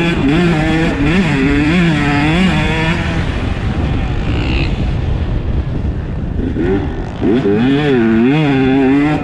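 2022 Husqvarna TC 125's two-stroke single-cylinder engine under riding, the throttle worked on and off so the pitch keeps rising and falling. It eases off for a few seconds in the middle, then the rising and falling pitch picks up again.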